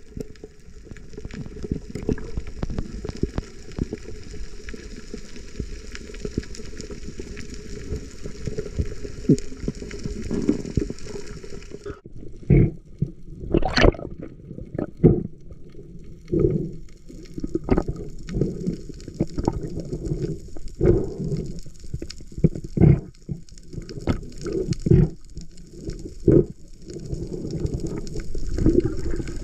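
Water sloshing and gurgling. A steady wash runs for about twelve seconds, then gives way to a string of separate low gurgles roughly every second or two.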